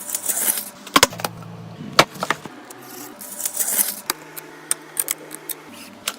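Scattered sharp clicks and taps with short bursts of rustling, as of small hard parts and packaging being handled while a PC is assembled, over a faint low hum.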